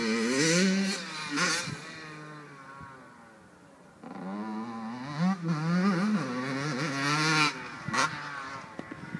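Motocross bike engine revving hard, its pitch climbing and falling as the throttle is worked, then cut off sharply about a second and a half in. After a quieter stretch it revs up again from about four seconds in, with several rises in pitch, and the throttle is chopped near the end as the bike goes over a jump.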